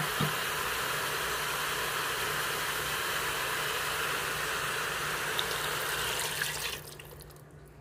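Chicken drumettes sizzling steadily in hot oil in an Instant Pot on its sauté setting. Near the end a cup of water is poured in and the sizzle drops away suddenly.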